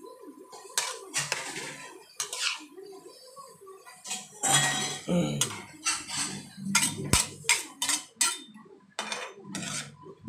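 A metal utensil clanking and scraping against a large metal pan as a batch of rice vermicelli with tofu and vegetables is tossed. The clanks come irregularly, in quick clusters.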